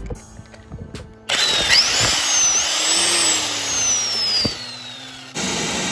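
Bauer 1,000 ft-lb corded electric impact wrench, powered through a 2000-watt inverter, switched on about a second in. Its motor whines up in pitch and then winds down. Near the end it cuts off suddenly and a steadier machine hum takes over.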